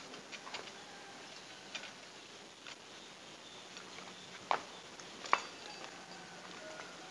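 Faint scattered clicks and taps of fishing tackle and a landed patin catfish being handled and unhooked on paving stones, with two sharper knocks about four and a half and five and a half seconds in.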